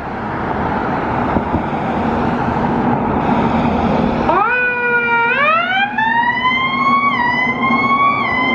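A loud rushing rumble from the fire truck. About four seconds in, the squad's Q-style siren starts and winds up in pitch, climbing steadily with two small step-ups near the end.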